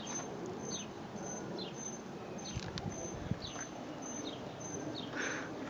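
A small bird chirping repeatedly: short, high, falling chirps about once a second over steady outdoor background noise, with a faint high-pitched pulsing tone above them.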